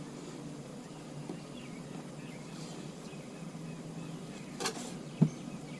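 Faint steady low hum, with two knocks near the end, the second one sharp.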